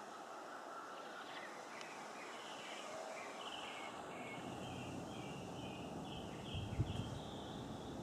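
Northern mockingbird singing a long run of short, varied high phrases, one after another. A low rumbling noise on the microphone comes in about halfway through, with a thump near the end.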